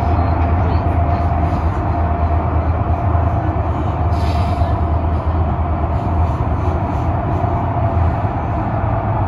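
Inside a CRRC Changchun low-floor light rail vehicle running at speed through a tunnel: a steady low rumble with a faint steady whine above it, and a brief hiss about four seconds in.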